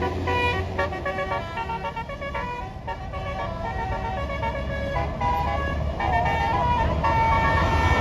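Bus basuri musical air horn playing a quick tune of changing notes, over the bus engine's low rumble.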